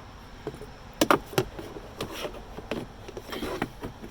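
A few short plastic clicks and knocks from the cabin air filter and its housing being handled and slid into place, the loudest about a second in.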